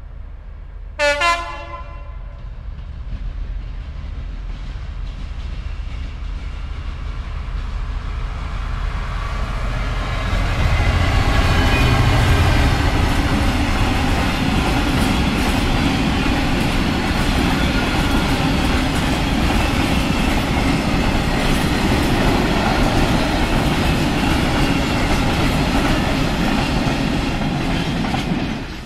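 A short horn blast about a second in from a Class 66 diesel freight locomotive. The train then approaches and passes, the locomotive's two-stroke EMD diesel engine running. A long rake of curtain-sided freight wagons follows, rolling past with steady wheel and rail noise.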